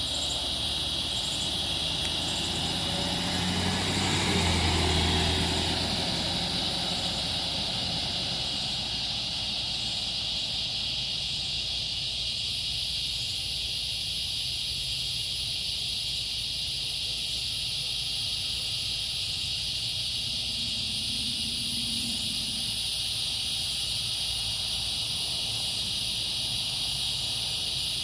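A steady, high-pitched insect chorus, such as crickets or cicadas. A vehicle passes about three to six seconds in, its rumble rising to the loudest point near five seconds and then fading.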